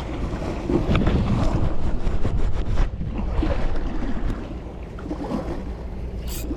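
Wind buffeting the microphone over the sea, with water washing below and a quick run of faint clicks about two seconds in.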